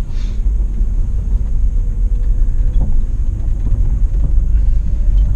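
Steady low road and tyre rumble heard inside a Mitsubishi Outlander PHEV driving on electric power while towing a loaded trailer, with a few faint knocks and rattles.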